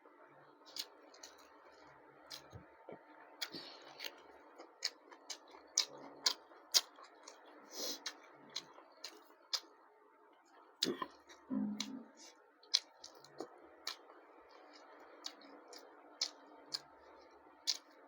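Close-miked eating: irregular sharp, wet mouth clicks and smacks while chewing, about one or two a second, with one louder, lower sound just past the middle.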